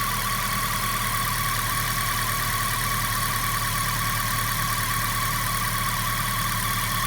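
Suzuki Baleno engine idling after a cold start, with a steady high-pitched whine held over the low engine hum. This is the bad cold-start sound whose cause the owner does not know.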